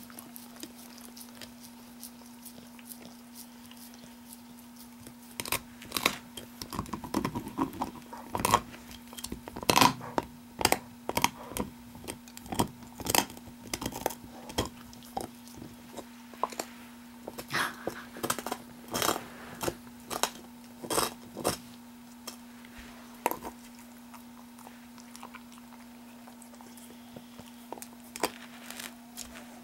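A blue heeler (Australian cattle dog) gnawing on a large meaty bone: irregular sharp crunches and scrapes of teeth on bone. The bites come thickly through the middle and are sparse at the start and near the end.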